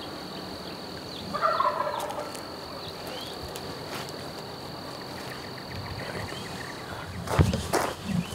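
A wild turkey gobbler gobbles once, a rattling call about a second in. Footsteps on a dirt road start near the end and are the loudest sound.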